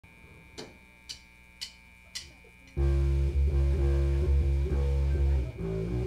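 Four sharp drumstick clicks, about two a second, count the band in; on the next beat, about three seconds in, the band comes in loud with a bass-guitar riff and electric guitar.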